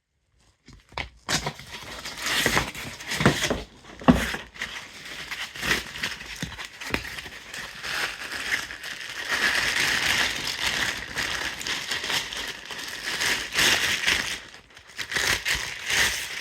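Packaging being handled and unwrapped: dense crinkling and rustling with scattered clicks and knocks, starting about a second in.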